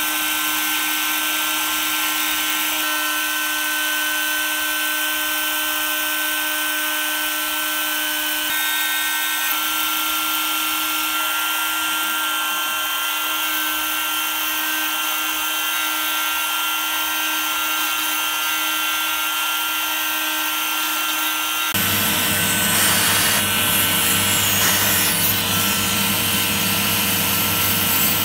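The rotary-tool spindle of a small 3D-printed CNC mill running at a steady high whine while its fine bit carves a relief into wood. The sound changes abruptly a few times and becomes louder and deeper for the last several seconds.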